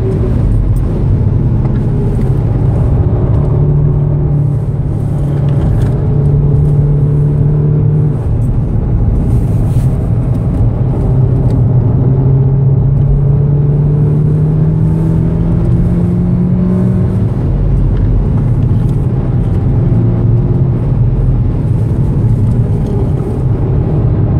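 A 2014 VW Golf VII R's stock turbocharged 2.0-litre four-cylinder engine, heard from inside the cabin, pulling hard in fourth gear. Its pitch dips as the car slows for a corner about eight seconds in, climbs steadily under throttle, then falls again.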